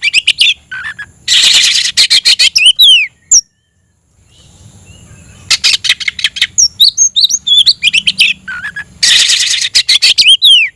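Oriental magpie-robin (kacer) singing loudly in full territorial song. Its phrases are bursts of rapid, harsh rattling notes mixed with short whistled slurs. The song breaks off into silence for under a second about a third of the way in.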